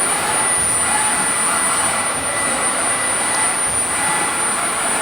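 Four-axis CNC router spindle running at speed while machining EPS foam: a steady high whine over an even hiss.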